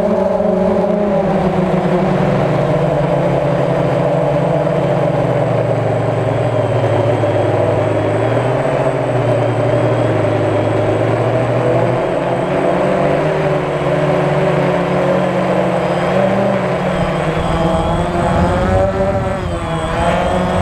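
DJI Phantom quadcopter's motors and propellers whining steadily, heard from the camera on the drone itself, the pitch stepping up and down as the motor speeds change. Near the end the pitch wavers as the drone descends to land.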